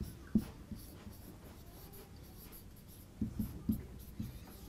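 Felt-tip marker writing on a whiteboard: short separate strokes and taps, with one sharper tap about a third of a second in and a quick run of strokes about three seconds in.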